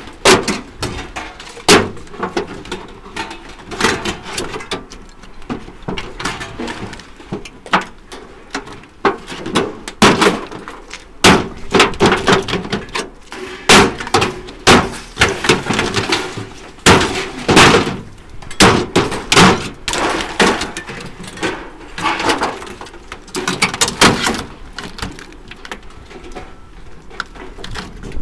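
Scrap metal being smashed up and handled: irregular loud clanks and knocks, about one or two a second.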